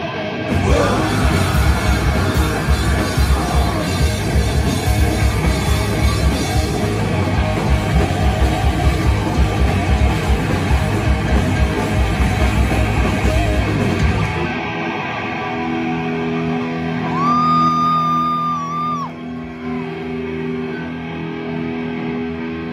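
Heavy metal band playing live: distorted electric guitars, bass and fast drumming with yelled vocals, ending abruptly about two-thirds of the way through. After the band stops, steady low humming tones linger, and a high held tone sounds for about two seconds near the end.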